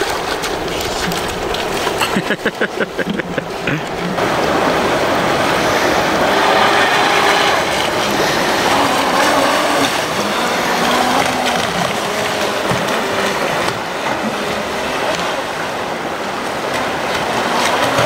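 Steady rush of river rapids, with a Streamline RC Thrasher jet boat running across the current; its battery-powered water-jet drive gives a faint whine under the water noise. A brief rapid fluttering comes about two seconds in.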